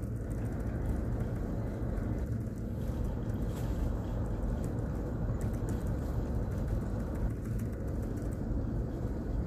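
Steady low drone of running ship's machinery with a deep hum, and a few faint clicks.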